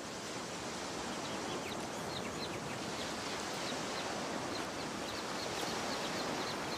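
Steady wash of surf breaking on a rocky shore, with quick, high bird chirps repeating from about a second in.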